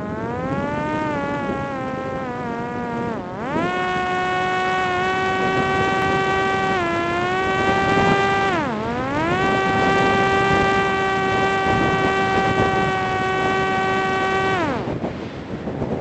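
Parrot Disco's electric motor and rear pusher propeller buzzing steadily. The pitch sags and climbs back as the throttle is eased off about three seconds in and again near the middle. The motor cuts out near the end, leaving wind rushing past.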